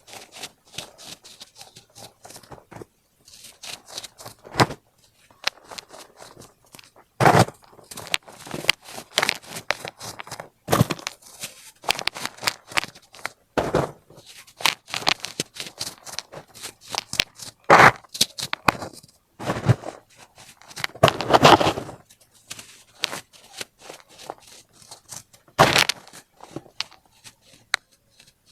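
Baking soda being crushed and squeezed, a run of irregular crisp crunches and squeaky crackles with several louder crunches spread through.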